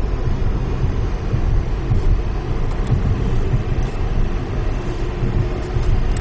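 Steady low road and tyre rumble inside a Tesla Model S cabin on a wet highway as the car gathers speed.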